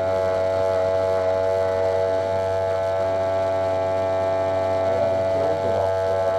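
Wahl electric hair clippers buzzing steadily, heard from right on the clipper body, as they cut short hair.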